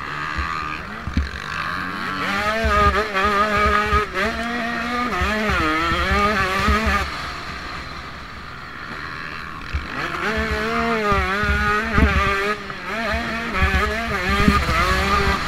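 Motocross bike engine heard from on board, the pitch repeatedly climbing and dropping as the throttle is opened and closed through the track. It eases off to a lower, quieter note about halfway through, then revs up again.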